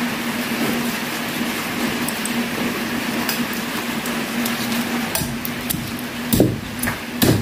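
Cleaver chopping through a grilled pig's head on a wooden chopping block: a handful of sharp chops in the last couple of seconds, against a steady hiss of rain.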